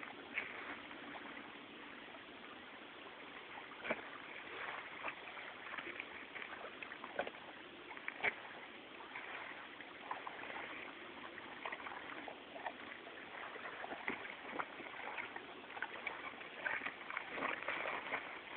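Handling noises of a deer being field dressed by hand: knife work and the entrails being cut loose and pulled from the carcass. Scattered short knocks and clicks run over a steady rustling background.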